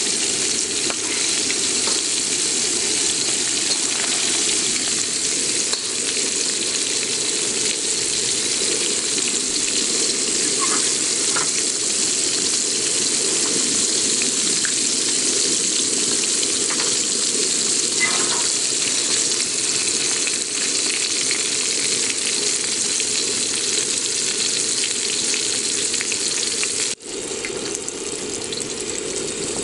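Whole striped red mullet deep-frying in hot oil in a steel wok: a steady sizzle. It cuts out for an instant near the end and resumes a little quieter.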